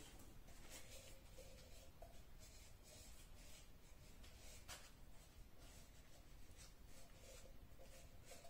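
Near silence with faint rustling and light scraping as tissue paper is smoothed onto a metal can, with one sharper tick about halfway through.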